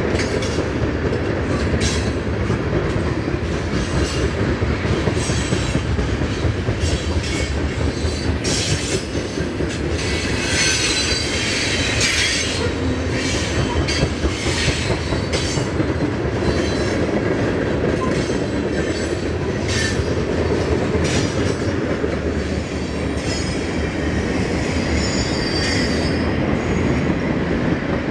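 Freight train of tank cars, flatcars and hoppers passing close by: a steady rumble of steel wheels on rail with repeated clicks over rail joints. High-pitched wheel squeal rises for a couple of seconds about ten seconds in, and again briefly near the end.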